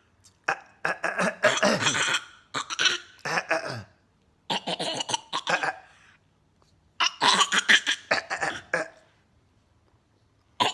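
Repeated, forceful throat clearing: about four harsh, rasping bouts of hacking, each a second or two long, with short silent gaps between them.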